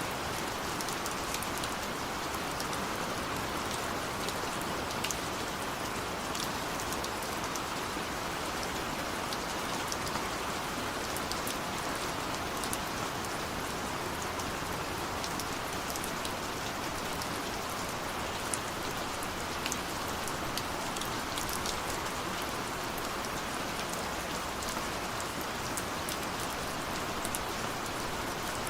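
Steady rain falling on a window: an even, unbroken hiss with many small, sharp drop taps scattered throughout.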